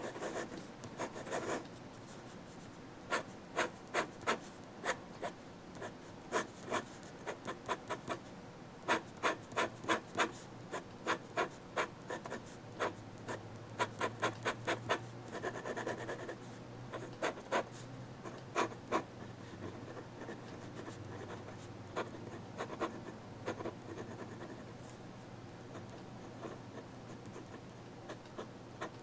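Steel nib of an Amazon Basics fountain pen scratching across Strathmore 400 sketch paper in quick hatching strokes. The strokes come in short runs of rapid scratches with brief pauses between them.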